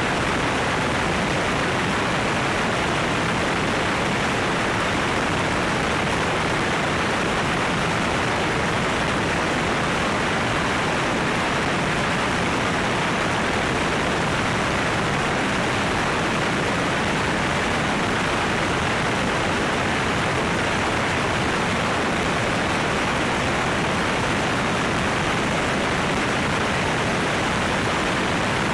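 Steady, loud rush of airflow and engine noise from a light propeller airplane in cruise flight, picked up by a camera mounted outside the cabin. It is an even roar with no clear engine pitch or breaks.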